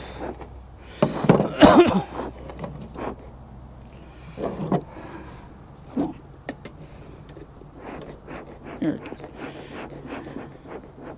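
Bee smoker bellows being squeezed: a few irregular wheezy puffs of air, the loudest about a second in, forcing oxygen into the smouldering cottonseed fuel to get it burning.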